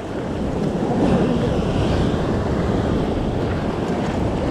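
Ocean surf surging and washing against a rock ledge, with wind buffeting the microphone; the rush of water swells about a second in and then holds steady.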